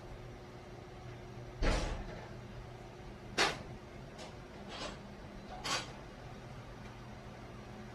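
Five short knocks and clacks of hard objects, the first the loudest with a low thump, over a steady low hum.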